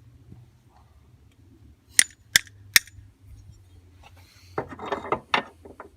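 Metal hand tools working on a truck door hinge: three sharp metallic clicks in quick succession, then, about a second and a half later, a short spell of rattling and clanking metal.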